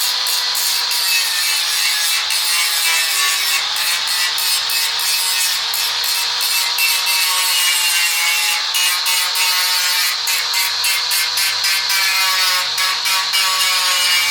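Hand file rasping back and forth across the welded joint of a steel band saw blade in quick, repeated strokes, over a steady whine.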